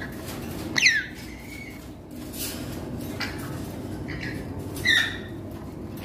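Four-month-old African grey parrot calling in a few short squawks: a sharp call sweeping steeply down in pitch about a second in, softer calls around three and four seconds, and the loudest, a short two-tone squawk, about five seconds in.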